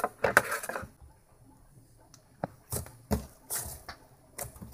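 Soft, creamy butter slime being pulled out of its plastic tub and stretched and folded by hand: irregular sticky clicks and squishes, thickest in the first second, then scattered single snaps.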